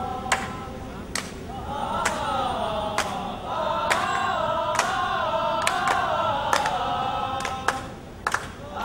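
A group of voices singing a tune together, beginning about two seconds in and dropping away near the end, over sharp claps on a steady beat a little under one per second.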